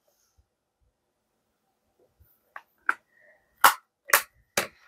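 Plastic Blu-ray case being handled: quiet for about two seconds, then five sharp clicks and snaps, the last three loudest.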